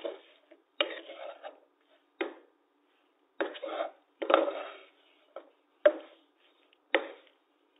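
Wooden spatula scraping and knocking against a pan as okra is stir-fried, in a string of separate strokes with short quiet gaps between them.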